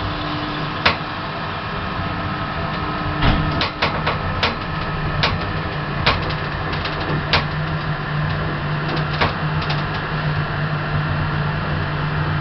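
1980s Thyssen hydraulic lift in motion: a steady low hum that grows stronger about seven seconds in, with a higher tone over the first few seconds and a scatter of sharp clicks and knocks from the car and its doors.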